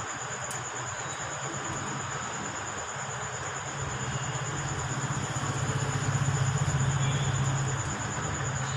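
A low engine hum of a passing motor vehicle that grows louder through the middle and eases off near the end, over a steady high-pitched cricket trill.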